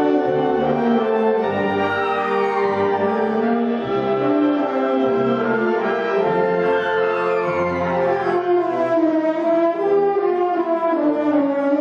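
Symphonic wind band playing, brass and horns to the fore over low bass notes, with a long falling run in the upper voices twice.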